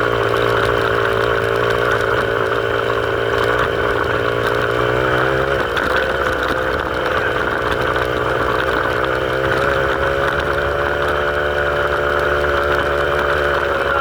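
A vehicle engine running steadily, its revs dipping briefly and then picking up again about six seconds in.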